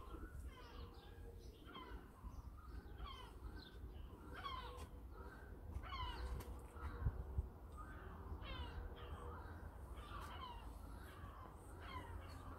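Crows cawing over and over, several birds calling at different distances, over a low steady rumble.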